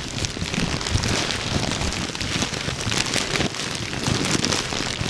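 Foley fire crackling: a steady crackle and hiss of many fine ticks, with an uneven low rumble underneath.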